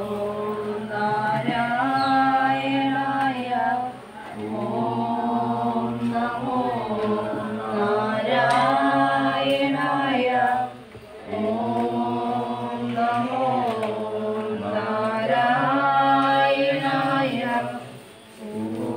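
Several voices chanting a devotional song in long held phrases, with brief pauses about four, eleven and eighteen seconds in.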